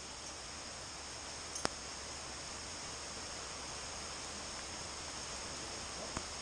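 A steady high-pitched hiss, with two sharp ticks: one about a second and a half in and one near the end.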